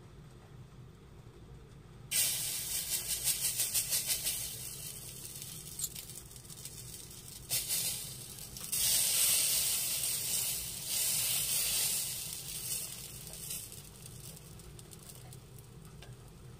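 Dosa batter sizzling on a small hot dosa griddle as spoonfuls are poured and spread. The sizzle starts suddenly about two seconds in, pulses quickly for a couple of seconds, then swells and falls in surges and dies away about three seconds before the end.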